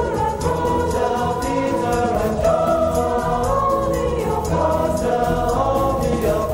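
Choir singing with accompaniment, long held notes that change pitch about once a second.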